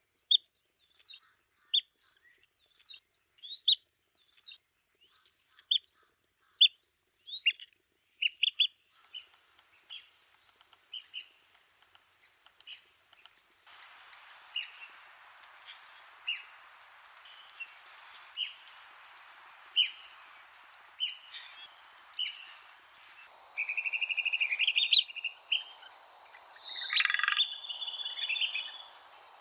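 Red-cockaded woodpecker calling: short, high, squeaky notes about one a second, then, a little past three-quarters in, louder runs of rapid chattering calls.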